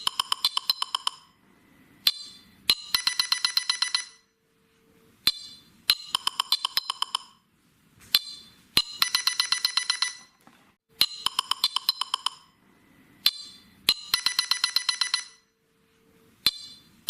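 A phone ringtone looping. About every three seconds there is a short run of rapid, bright clinking ticks, each run led by a single sharp click.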